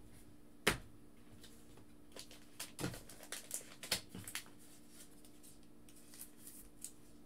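A few sharp clicks and taps of hard plastic trading-card toploaders being handled and set down, the loudest about a second in, over a faint steady hum.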